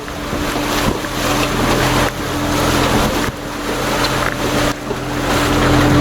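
An engine running steadily under a loud rushing noise, which drops away briefly a few times.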